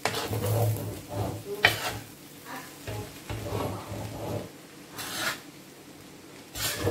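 Metal spoon stirring and tossing rice vermicelli in a large stainless-steel frying pan, scraping the metal, over a light sizzle of frying. Several sharper scrapes stand out, the loudest about a second and a half in and near the end.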